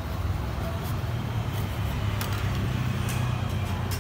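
Metal spatulas clicking and scraping on a rolled-ice-cream cold plate, several short sharp clicks, over a steady low rumble.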